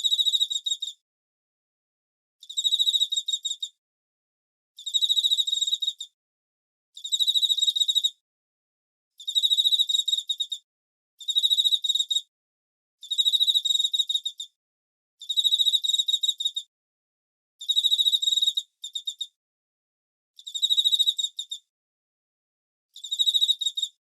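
A cricket chirping in short pulsed trills, each lasting a second or so and repeating about every two seconds, high-pitched with silence between trills.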